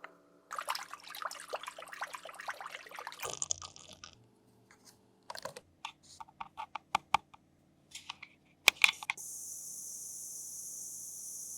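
Handling of toy packaging: a few seconds of dense crinkling and crackling plastic, then a run of sharp plastic clicks at about four a second and two louder clicks. A steady high hiss starts suddenly about nine seconds in and holds.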